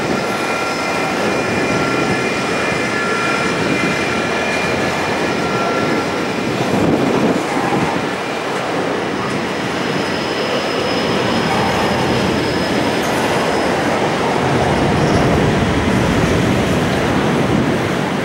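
Double-stacked container wagons of a freight train rolling past on curved track, a steady rumble of wheels on rail with thin high squealing tones coming and going over it.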